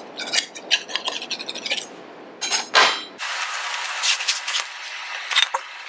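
A table knife scraping and clicking rapidly against the inside wall of a metal baking pan as it is run around the edge to loosen the loaf, then a few scattered knocks as the hot pan is handled with oven mitts.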